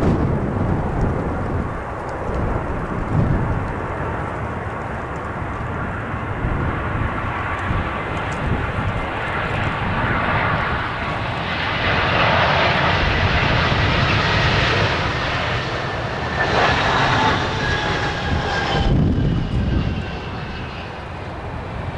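An Airbus A320's IAE V2500 turbofans whining on landing approach, growing louder as the jet comes close and then falling in pitch as it passes. Gusty wind rumbles on the microphone throughout.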